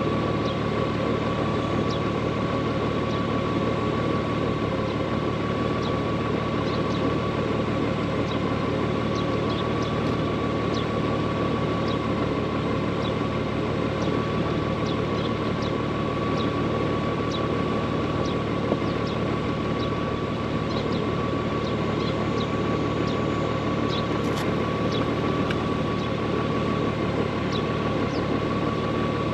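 Honda Gold Wing motorcycle engine idling steadily while the bike stands still, with a faint steady high whine and light scattered ticking over it.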